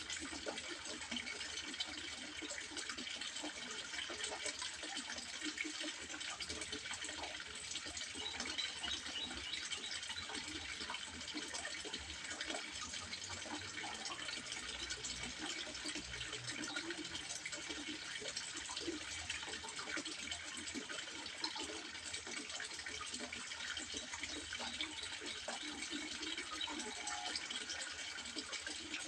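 Water trickling and splashing steadily into a fish pond, a continuous unbroken splashing with no pauses.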